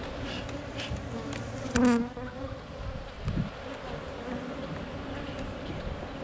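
Honeybees humming steadily around an open nuc hive, with a few light clicks of the hive tool against the wooden frames and a brief louder sound about two seconds in.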